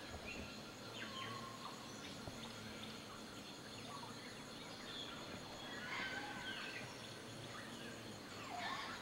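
Wild birds calling: scattered short chirps and sliding whistles, busiest about two-thirds of the way through and near the end, over a faint steady background hiss.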